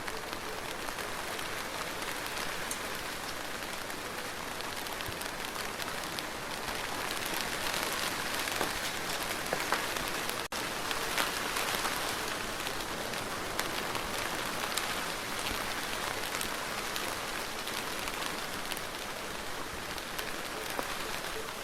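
Steady rain falling on a surface, a dense hiss sprinkled with many individual drops ticking. It swells slightly in the middle and cuts out for an instant about ten seconds in.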